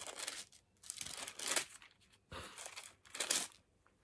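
Thin Bible pages rustling as they are leafed through, in about four quick bursts of page turning.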